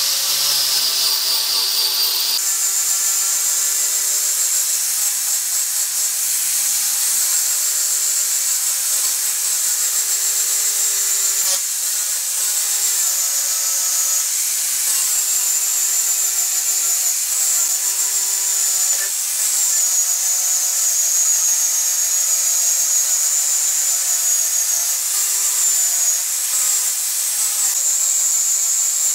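Angle grinder with a 240-grit sanding disc on a backing pad, sanding the live edge of an ash slab. It gives a loud, steady high whine with small dips in pitch as the disc is pressed onto the wood.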